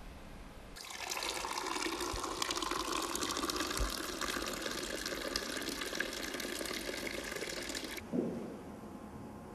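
Water pouring in a thin stream into a drinking glass, filling it. It starts about a second in and stops abruptly about eight seconds in.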